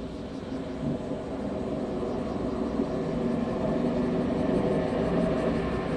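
Boeing 787-8's two Rolls-Royce Trent 1000 turbofans at takeoff thrust during the takeoff roll and rotation: a deep jet rumble growing steadily louder as the airliner approaches.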